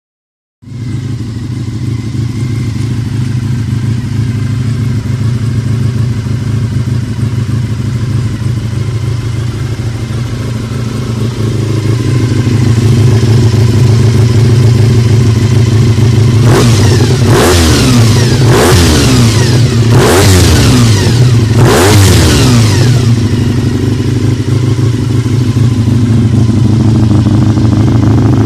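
Honda VFR400R NC30's 400 cc V4 engine running at a steady idle, then revved in a quick run of about five sharp throttle blips, each rising and falling away, before settling back to idle.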